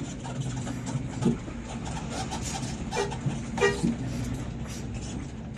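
Bus engine running with a steady low hum, with a few brief sharp sounds over it in the middle.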